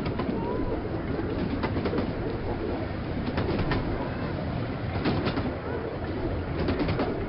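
Miniature railway train running along the line, heard from a coach: a steady rumble from the wheels and coaches, with irregular clicks and knocks from the track.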